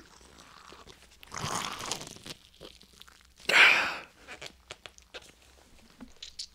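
Mini watermelon's rind crunching and tearing as it is pried apart by hand, the flesh starting to juice. There are two louder crunching bursts, about a second and a half in and around three and a half seconds, then a run of small cracks and clicks.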